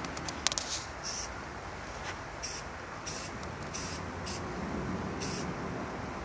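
Aerosol spray paint can hissing in short bursts, about seven in all, as a black outline is sprayed onto a wall. A few sharp clicks come about half a second in.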